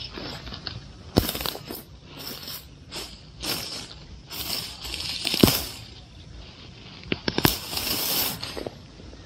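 Crunching and rustling of dry weeds and mulch while walking through the plants, in irregular bursts, with a few sharp clicks and a longer crunch near the end.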